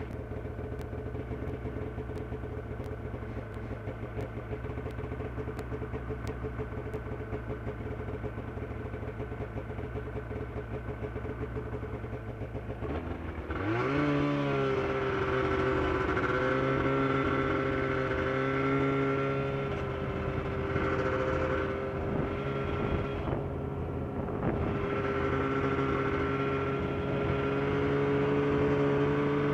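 Snowmobile engine idling, then revving up about halfway through as the sled pulls away, and running on at a steady cruising speed with small rises and dips in pitch.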